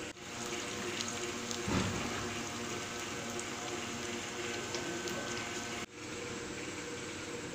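An egg frying in oil on a hot flat griddle (tawa): a steady sizzle full of small crackles and pops. A brief low knock comes about two seconds in.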